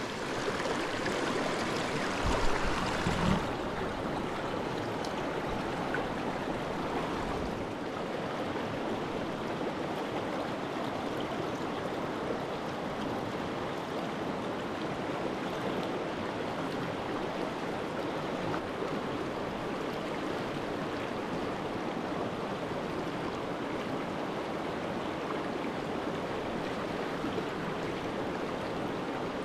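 Small rocky creek flowing over stones, a steady rush of water. In the first few seconds the water is closer and louder, with a few sharp splashes or knocks as a netted brook trout is handled in the water.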